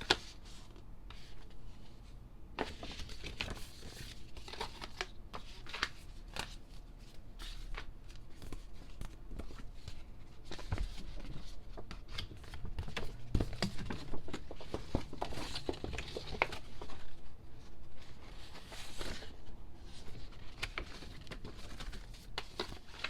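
Hands handling an album's paper and plastic contents: irregular rustling and crinkling with scattered small clicks and taps.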